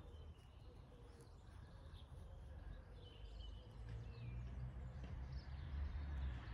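Faint outdoor ambience: a few small bird chirps over a low rumble that grows louder in the second half.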